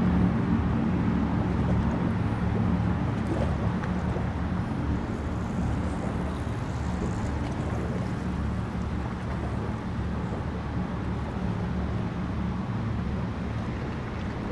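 Engines of high-performance powerboats running flat out on open water, a steady low drone that slowly fades.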